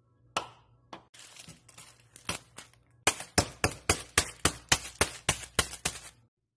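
A packet of Maruchan instant ramen being smashed on a tile counter with a long rod, to break up the dry noodle block inside. A few knocks and wrapper crinkles come first, then about a dozen quick sharp strikes, about four a second.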